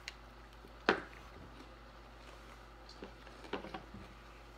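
Kit Kat chocolate wafer pieces being bitten and chewed: one sharp snap about a second in, then a few softer crunches and clicks a little past the middle.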